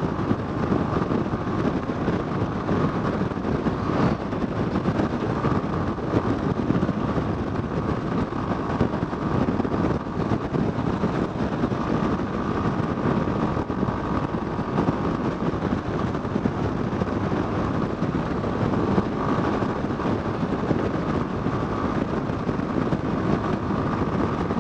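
Yamaha Fazer 250's single-cylinder engine running steadily at highway cruising speed, under a steady rush of wind and road noise.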